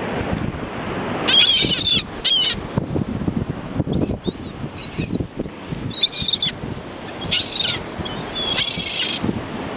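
A flock of seagulls calling: about eight short, high squealing calls in quick succession, over heavy wind buffeting the microphone.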